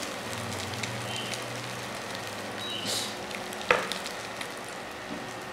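Spiced potato hash browns sizzling steadily in hot oil in a pan, after being turned over. A single sharp click sounds a little past halfway.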